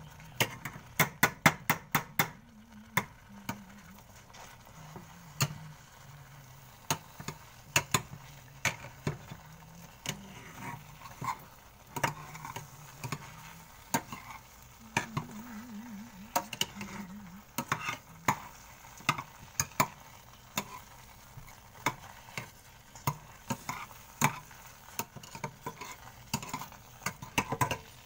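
Metal potato masher knocking against a stainless steel saucepan as cooked sweet potato and oats are mashed. A fast run of knocks in the first couple of seconds gives way to irregular, sparser knocks.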